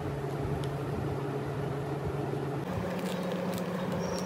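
A steady motor hum that steps up slightly in pitch about two-thirds of the way through, with a few faint clicks near the end.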